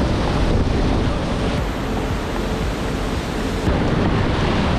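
Whitewater rapid, a steady loud rush of churning, foaming river water close around a kayak.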